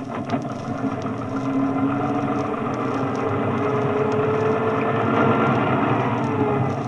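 Motor bus engine running under way, with a gear whine that rises and holds in pitch, then falls away near the end.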